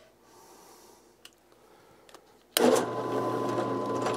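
Benchtop drill press switched on about two and a half seconds in, its motor then running steadily with a low hum and a thin steady whine. A couple of faint clicks come before it starts.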